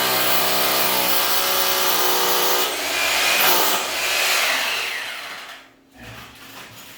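Power drill driving a pocket screw into a mahogany countertop, its motor running steadily under load, shifting in pitch about halfway through and winding down to a stop near the end.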